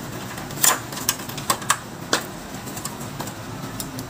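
A run of sharp clicks and light taps of metal and plastic as a roller blind's end and its wall bracket are handled and fitted together, the loudest one under a second in.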